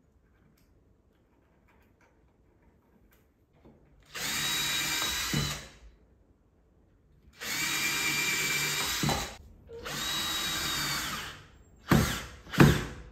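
Cordless drill running in three steady bursts of a second or two each, starting about four seconds in, as it bores into a wooden bed leg to fix metal angle brackets. Near the end come two short, louder bursts as a screw is driven through a bracket.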